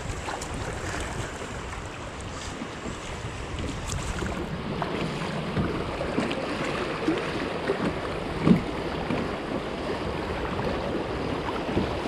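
Rushing river rapids and water splashing against a kayak's hull as it runs through swift, choppy water, with a sharper splash or knock about eight and a half seconds in.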